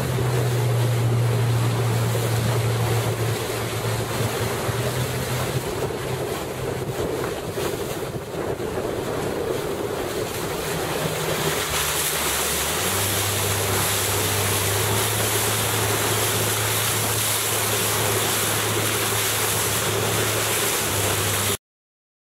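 Wind buffeting the microphone and rushing water, with the steady drone of a boat's motor underneath that drops slightly in pitch about halfway through. The sound cuts off abruptly just before the end.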